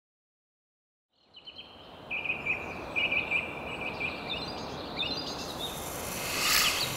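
Silence, then a forest ambience fades in about a second in: a steady outdoor hiss with birds chirping and singing. A brief hissing swell comes near the end.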